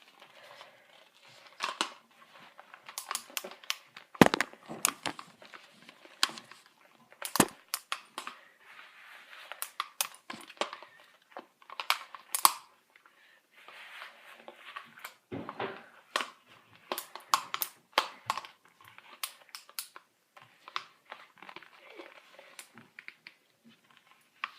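A child's mouth-made punch sound effects: a long, irregular string of sharp spat clicks and short hissing bursts.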